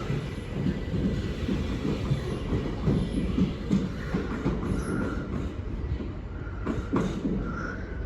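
Class 377 Electrostar electric multiple unit moving along the platform, its wheels rumbling and knocking over the rail joints, with a faint wheel squeal a few times and a sharper clank about seven seconds in.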